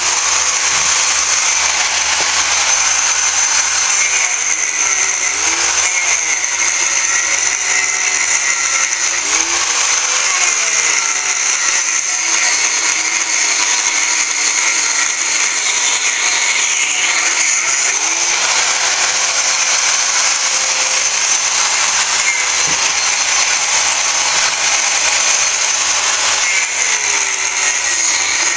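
Electric angle grinder running continuously as its disc cuts into the metal motor-and-pump unit of a Kärcher pressure washer. Its pitch dips and recovers several times as the disc is pressed into the cut.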